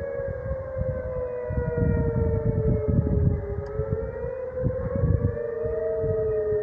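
Outdoor tornado warning sirens wailing during a scheduled test: long held tones that glide slowly up and down, two pitches close together sliding past each other, over a low rumbling noise.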